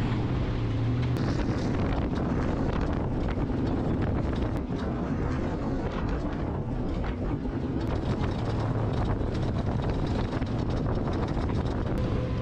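Off-road vehicle engine running steadily under way, with wind buffeting the microphone.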